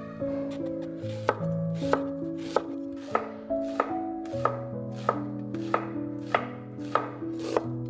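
Chef's knife slicing a red onion on a wooden cutting board: steady, even strokes, each ending in a sharp knock of the blade on the board, about three every two seconds.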